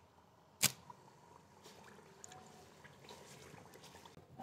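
Spice paste frying in hot ghee in an aluminium pot, faintly sizzling and bubbling as a spatula stirs it, with one sharp knock just over half a second in.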